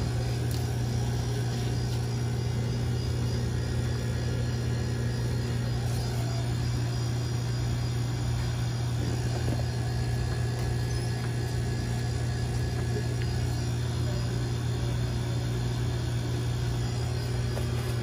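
Refrigeration compressor running with a steady low hum.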